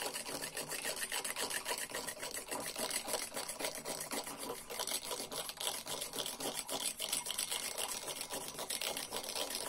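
Homemade frother made from SIP electrical cable, twirled back and forth between the palms in a glass mug, whipping instant coffee with a little boiling water into foam: a fast, continuous rattling whir.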